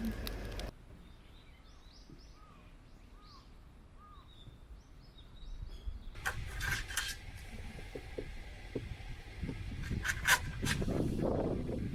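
Outdoor ambience with birds chirping in a string of short calls, followed by louder rustling noise with a few sharp knocks.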